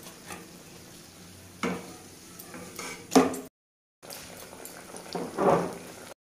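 Banana koftas deep-frying in hot oil in an aluminium kadai: a steady sizzle and bubbling, broken by a few knocks of a utensil against the pan, the loudest about three seconds in. The sound drops out for half a second just after that knock and again at the very end.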